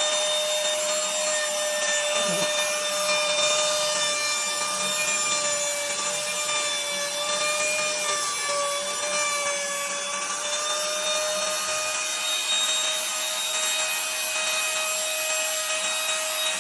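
Electric router running steadily with a constant high whine while it cuts a slot into a solid wooden electric guitar body, its bit chewing through the wood with a dense hiss.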